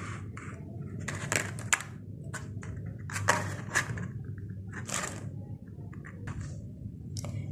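Small plastic toy pieces, a palm tree and fence sections, being handled and set down on a cloth-covered surface: scattered light taps, clicks and short rustles, over a steady low hum.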